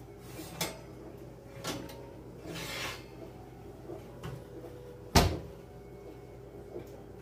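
Household handling sounds: a few light knocks and a brief rustle, then one sharp, loud thump about five seconds in.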